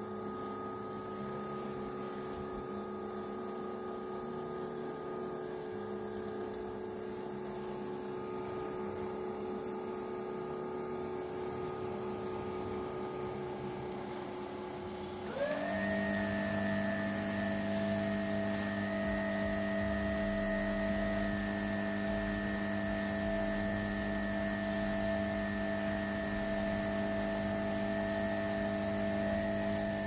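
Brushless DC motor, driven by an electronic speed controller, running with a steady whine at about 2,000 RPM. About halfway through it speeds up quickly: the whine rises in pitch, gets louder, and settles into a new steady, higher whine.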